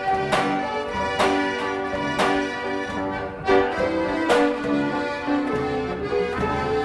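Seybold Piano-Accordeon-Jazz orchestrion, a mechanical accordion-and-drum band, playing a tune: held accordion chords with a drum beat roughly once a second.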